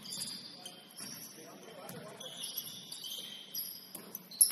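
Basketball sneakers squeaking on a hardwood court: many short, high squeaks starting and stopping at different pitches. There is a sharp knock near the end.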